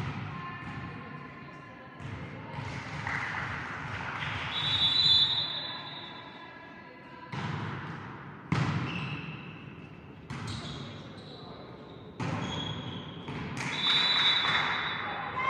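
Volleyball rally in a sports hall: several sharp smacks of hands and arms on the ball, one to two seconds apart, each with a short echo in the hall. Players' shouts come in between.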